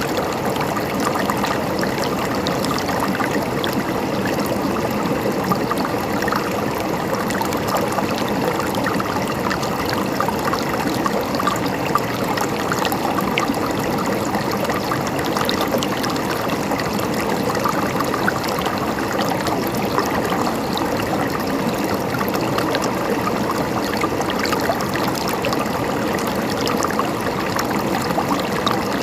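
River water flowing and gurgling steadily over stones, a continuous rushing with fine splashes and trickles.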